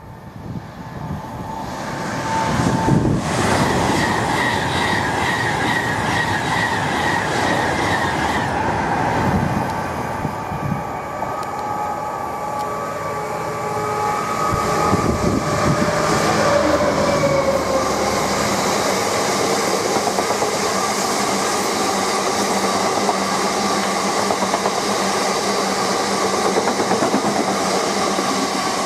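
A Class 66 diesel locomotive passes at speed hauling a long freight train of box wagons. The sound builds over the first few seconds as it approaches, then the rake of wagons runs past with a steady loud rumble and clatter of wheels on the rails.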